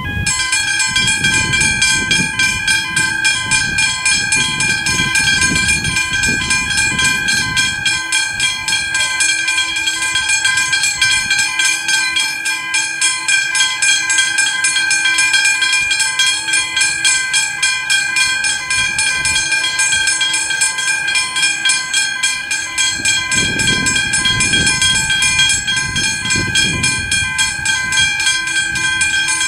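Railway level crossing bell starting up and ringing with rapid, continuous strikes as the flashing-light signals activate. A low rumble sits underneath for the first eight seconds or so and returns near the end.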